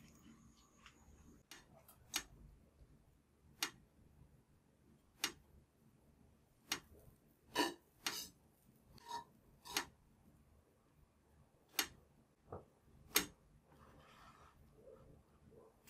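Light clicks and taps of a spatula against a pan as butter is spread in it, about a dozen at irregular intervals, with a faint soft hiss near the end as bread is set into the pan.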